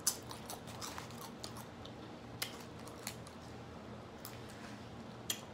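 Crunchy chips being chewed close to the microphone: irregular sharp crunches, the loudest just after the start.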